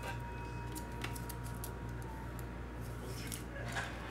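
Handling noise from a trading card in a rigid plastic holder: short scratchy rubs and light clicks as the holder is moved and gripped, the loudest cluster near the end, over a steady low electrical hum.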